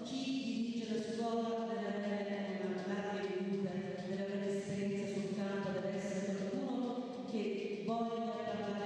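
Slow chant-like vocal music: sung notes held for a second or two each, moving from pitch to pitch in a steady flow.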